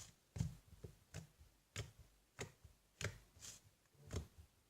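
A stiff mixed slime being stretched and squeezed by hand, giving faint sticky clicks and pops about once or twice a second.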